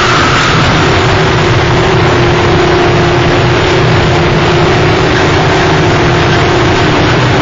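Harsh noise music: a loud, dense wall of distorted noise that barely changes, with a steady low drone and hum underneath.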